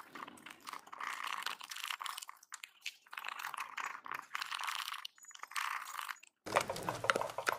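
Wooden spatula stirring and scraping a thick finger-millet (ragi) dough in a stainless steel pot, in irregular rubbing strokes with small clicks of wood on metal. After a short break about six seconds in, the scraping comes back louder with a few knocks.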